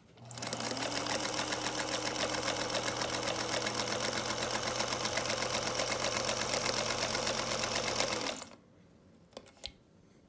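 Singer 221 Featherweight sewing machine stitching fabric: its motor winds up at the start, then runs steadily under the fast, even clatter of the needle mechanism, and stops abruptly about eight seconds in. A few light clicks follow.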